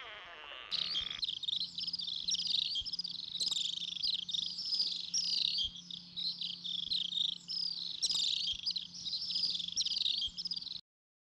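Birds chirping, a busy, continuous run of quick high twittering notes that stops suddenly near the end.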